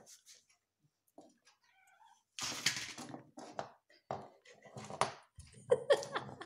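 Tabby cat rolling and scuffling on the floor while pawing a small valerian bottle, giving a series of short noisy scrapes and knocks from about two seconds in, with a short meow-like call near the end. The cat is excited by the valerian.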